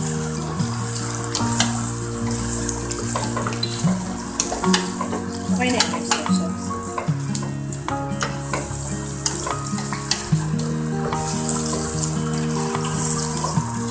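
Kitchen tongs stirring and tossing fried tofu and pork in a stainless steel pot, with frequent sharp clicks of the tongs against the metal over a steady hiss. Background music with sustained low notes plays throughout.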